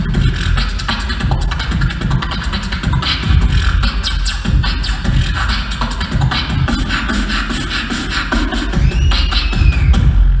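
Live beatboxing amplified through a stage microphone and PA: a dense, rhythmic stream of vocal kick-drum, snare and hi-hat sounds over deep bass.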